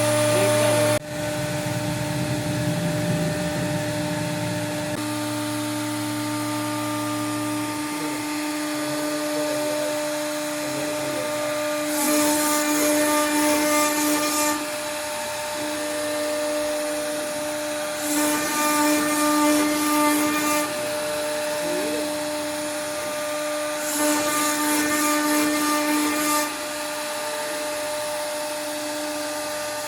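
CNC router spindle running with a steady whine, its bit cutting into wood in bursts of louder, hissy noise about two and a half seconds long, roughly every six seconds in the second half.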